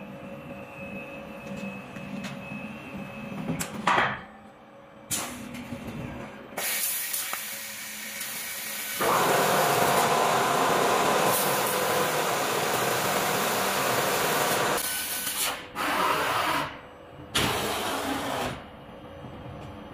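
Tube laser cutting machine cutting a steel U-channel: a loud steady hiss from the cutting head's gas jet as it cuts, starting and stopping in several bursts, with the longest run of about six seconds in the middle. Before the first burst the machine hums quietly with a faint whine.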